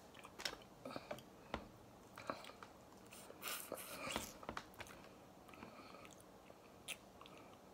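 Faint close-up chewing and mouth sounds of a person eating snow crab meat, with scattered clicks and crackles from crab leg shell being broken and pulled apart. A denser stretch of crunching comes about three and a half seconds in.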